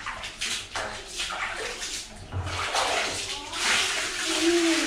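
Water splashing and sloshing in a plastic basin as hands wash something in it, in a run of irregular splashes.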